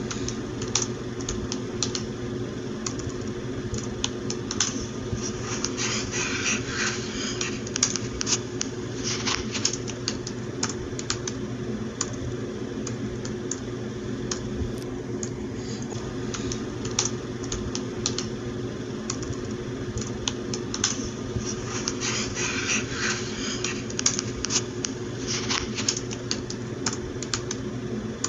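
Typing on a computer keyboard: irregular key clicks with quicker runs of keystrokes about six seconds in and again about twenty-two seconds in, over a steady low hum.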